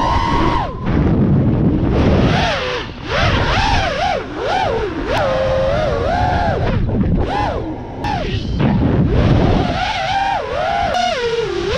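FPV quadcopter's brushless motors and propellers whining, the pitch swooping up and down again and again as the throttle is worked, over wind buffeting on the onboard GoPro's microphone.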